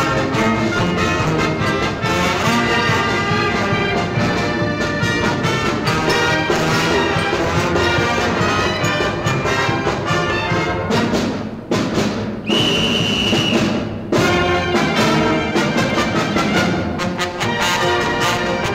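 Brass band music with trumpets, trombones and drums. About twelve seconds in the band breaks off briefly and a single high held tone sounds for about a second before the band comes back in.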